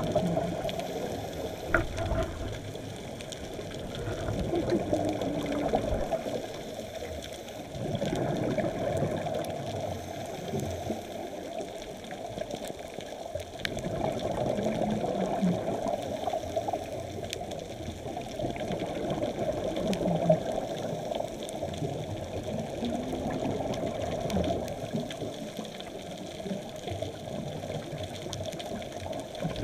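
Muffled underwater rushing heard through a camera housing, swelling and fading every five seconds or so with a scuba diver's breathing and exhaled bubbles.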